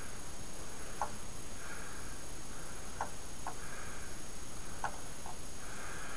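A few faint, scattered light ticks as a paintbrush dabs dark iron paint onto the sharp edges of a plastic 1/35 scale model tank, painting on chipping, over a steady background hiss.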